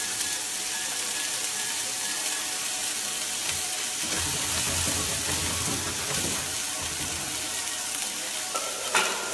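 Food sizzling in a hot frying pan on a gas stove, a steady hiss, while it is stirred.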